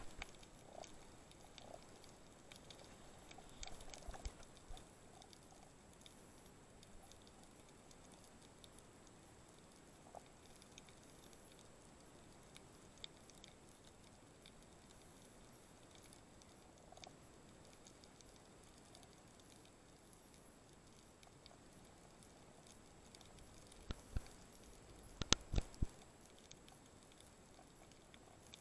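Faint, muffled underwater ambience picked up by a camera in a waterproof housing, with scattered soft crackles and ticks. A few louder bumps come in the first seconds, and a short cluster of sharp knocks comes near the end.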